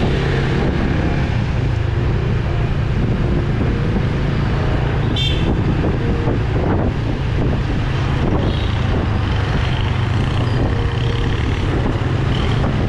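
Motorcycle riding in traffic: the steady hum of the Honda Winner V1's engine under road and traffic noise. A vehicle horn toots briefly about five seconds in.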